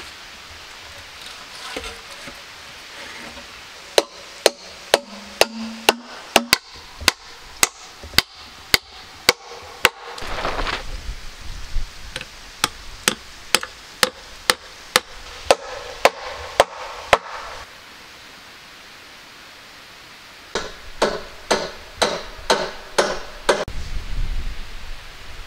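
A hand tool striking wood in steady runs of sharp blows, about two a second, pausing after a while; near the end the blows come quicker, about three a second.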